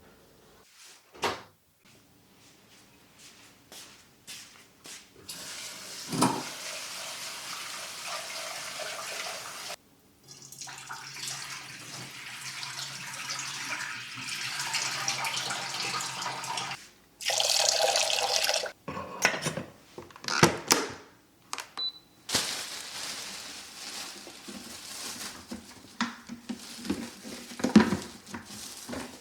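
Water running, stopping and starting several times, with knocks and clatter in between.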